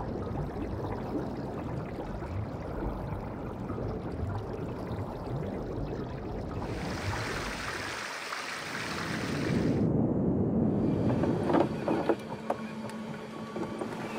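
Swimming-pool water: a low underwater rumble, then brighter swishing water from about seven seconds in, with a few clicks and a faint steady tone near the end.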